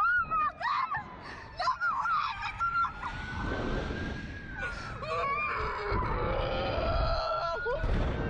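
Two women screaming and gasping on a Slingshot reverse-bungee ride: short sharp yelps and cries for the first few seconds, then one long wailing cry that slowly climbs and then falls in pitch. Wind rumbles on the microphone underneath.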